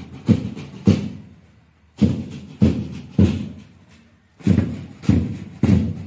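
Drums beating a marching cadence: three heavy beats about half a second apart, then a short pause, repeated.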